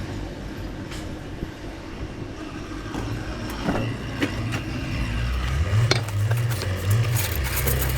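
An engine running low and steady, getting louder about five seconds in, with a few scattered metallic clinks and knocks.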